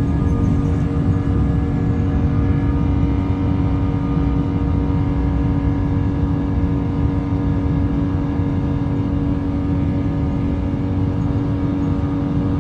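Rolls-Royce jet engine running steadily: a constant low rumble with several steady tones held over it, unchanging in level.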